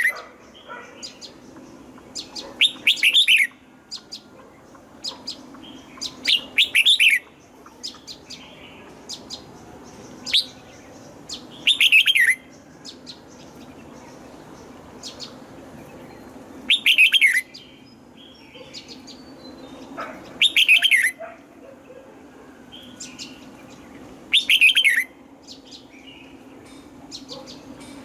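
Red-whiskered bulbul singing: short, loud phrases of quick falling notes repeated about every four seconds, with softer chirps in between. A faint steady hum runs underneath.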